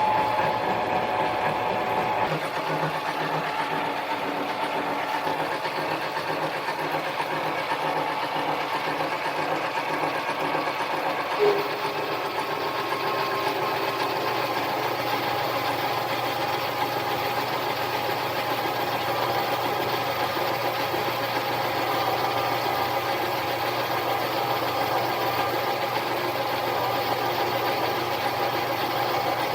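Harbor Freight mini lathe running steadily under power, with a short louder blip about eleven seconds in.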